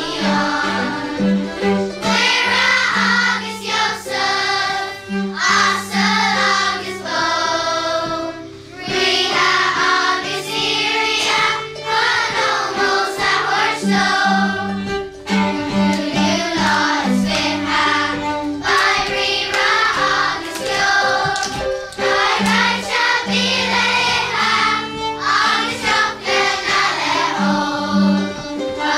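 Children's school choir singing together, phrase after phrase, over a low accompaniment of steady repeated notes.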